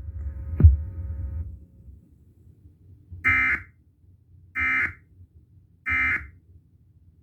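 Emergency Alert System End of Message code: three short, identical bursts of warbling digital data tones, about 1.3 s apart, marking the end of the alert. About half a second in, a sharp thump over a low hum comes before them.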